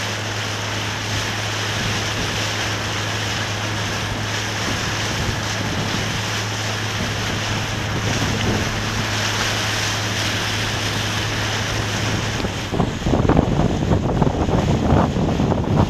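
Wind and water noise out on the water, with a steady low hum that cuts out about three-quarters of the way through; from then on, gusts buffet the microphone in loud, uneven rumbles.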